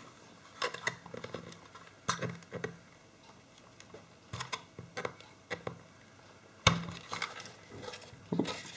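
Scattered clicks, scrapes and knocks of a small tool and fingers prying at a stuck, corroded circuit board inside a plastic enclosure, with one louder knock about two-thirds of the way through.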